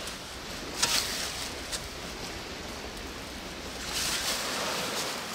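Spade cutting into soil and dry leaves: a short crunch about a second in and a longer scrape around four seconds, over a steady rushing background noise.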